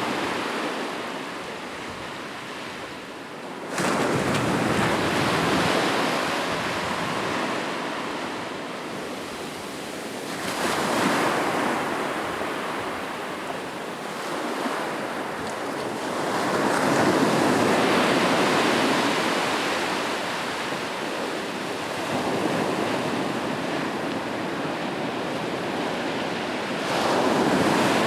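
Ocean waves breaking on a beach, the surf rising and falling in slow surges every six to ten seconds, the sharpest break about four seconds in.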